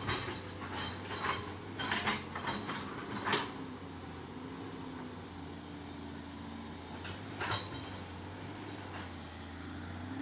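An engine running steadily at an even low pitch. Several sharp metallic clanks come in the first few seconds, and one more follows later.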